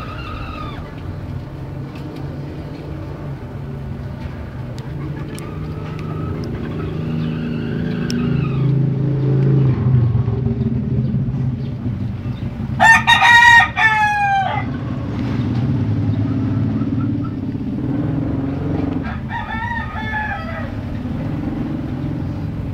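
Gamecock roosters crowing: one loud, close crow about 13 seconds in and a fainter crow about 19 seconds in, with faint crows from farther birds earlier. A steady low rumble runs underneath.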